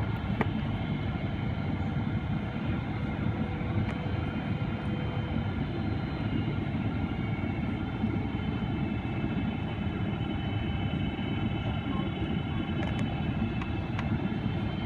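Steady cabin noise of a Boeing 777-300ER descending on approach, heard from inside the cabin beside its GE90-115B engine: a low rumble with several steady whine tones layered over it.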